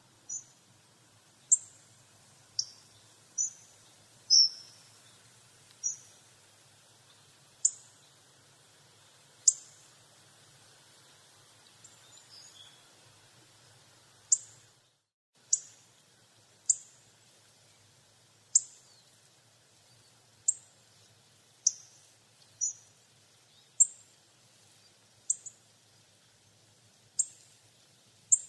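Hawfinch calling: short, sharp, high-pitched ticking calls, repeated about twenty times at irregular intervals of one to two seconds.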